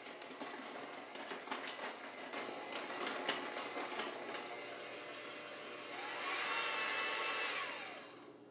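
Electric hand mixer running, its beaters churning thick banana muffin batter with pecans and clicking against the glass bowl. About six seconds in its pitch rises and it gets louder as the beaters come up out of the batter, then it winds down near the end.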